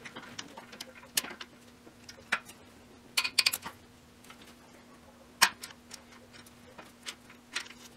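Ratchet wrench on a swivel-tip extension clicking in short runs and single sharp clicks as it is worked back and forth to loosen the exhaust manifold nuts. There is a quick cluster of clicks a little past three seconds in and a loud single click about five and a half seconds in, over a faint steady hum.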